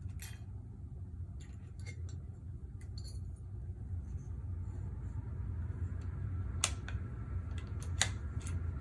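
Scattered light metallic clicks and clinks of rifle parts and tools being handled during disassembly, a few in the first three seconds and more near the end, over a steady low hum.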